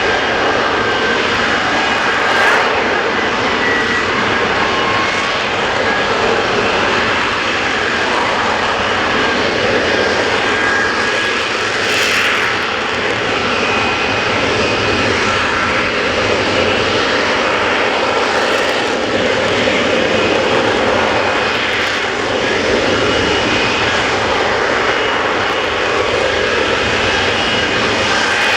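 Lockheed Martin F-35B's Pratt & Whitney F135 jet engine running at high power, a loud, steady roar with faint wavering tones in it.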